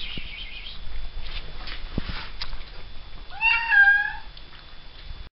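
A domestic cat meows once, a single drawn-out meow of about a second, starting a little past halfway, rising slightly in pitch and then falling. Before it come soft rustles and a few faint clicks.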